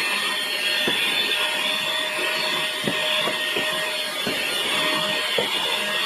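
JB-107 mini cordless handheld vacuum cleaner running steadily: an even motor whine over the hiss of rushing air, with scattered light ticks as it picks things up from the bench. It is running normally, with no issues.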